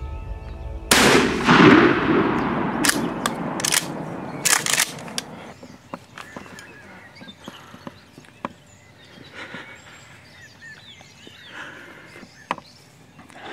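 A single shotgun blast about a second in, its echo fading over a couple of seconds, followed by a few sharp knocks, then quiet.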